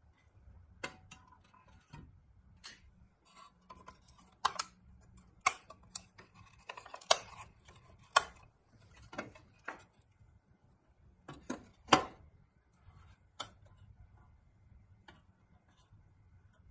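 Irregular clicks, knocks and light metallic clinks of a rusty pressed-steel toy truck cab and its grille being handled and pulled apart, with the loudest knocks about seven and twelve seconds in.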